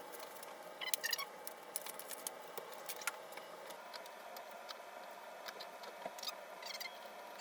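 Unpacking a BMX bike: packaging rustling and scattered light clicks and knocks as parts are handled, over a faint steady room hum.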